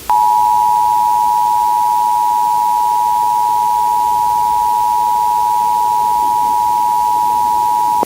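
Emergency Alert System attention signal: two steady tones just below 1 kHz sounded together, loud and unwavering, cutting off sharply about eight seconds in. It is the alert tone that warns listeners an emergency message is about to be broadcast.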